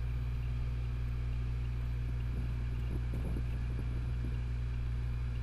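A steady low rumble, with a few faint light metal clicks near the middle as the mounting tip is fitted onto the blade-changing tool by hand.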